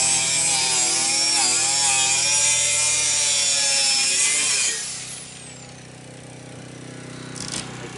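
Compact circular saw cutting through a painted wood panel, the motor's pitch wavering as it works under load. About four and a half seconds in, the saw is released and spins down with a falling whine.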